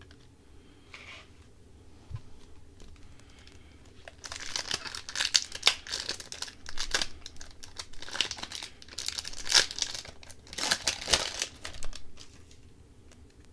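A hockey card pack's wrapper being torn open and crinkled by hand, in repeated crackling bursts from about four seconds in until near the end.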